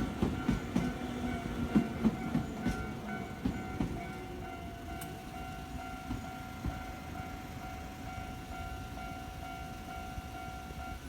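Train wheels clattering over the rail joints at a level crossing, the knocks thinning out over the first four seconds as the train clears. The crossing's electronic warning bell rings throughout and cuts off right at the end.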